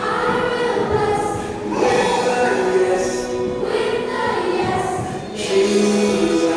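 A choir of voices singing a slow song in long held notes.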